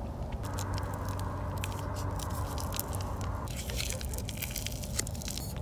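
A plastic spork scrapes and clicks against the inside of an insulated stainless steel food jar, squishing through soft, nearly overcooked pasta. A steady low hum starts about half a second in and stops at about three and a half seconds.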